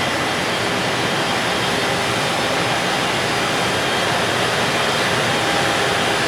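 Long freight train of container wagons rolling past, a steady noise of wheels on the rails with faint ringing tones.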